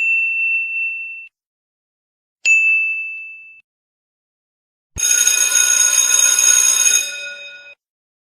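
Bell-like 'ding' sound effects: a single bright ding rings out and fades, the same ding strikes again about two and a half seconds in, then a longer ring of several bell tones starts about five seconds in, holds for two seconds and dies away.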